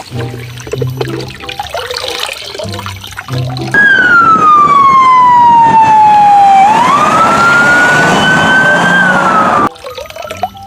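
A loud siren-like whistling tone comes in about four seconds in. It glides steadily down in pitch for about three seconds, swoops back up and holds, then drops and cuts off suddenly. Before it there is soft clatter with a few short low hums.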